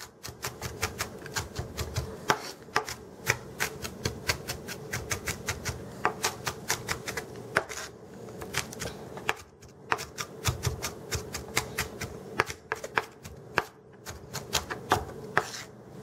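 Kitchen knife mincing onion on a plastic cutting board: a quick, even run of sharp knife taps, about three to four a second, with a couple of short pauses.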